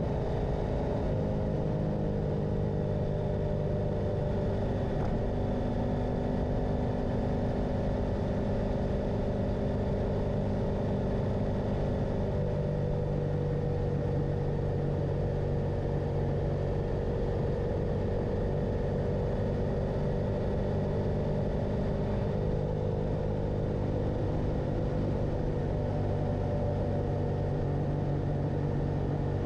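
Motorcycle engine running under way, its pitch drifting slowly up and down with throttle and road speed, over a low rumble of wind and road.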